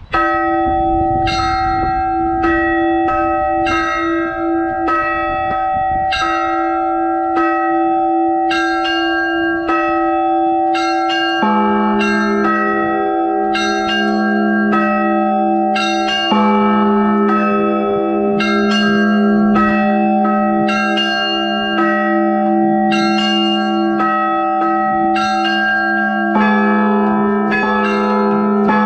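Church bells being rung: quick repeated strikes on several higher bells over a steady ringing, with a deeper bell joining about eleven seconds in.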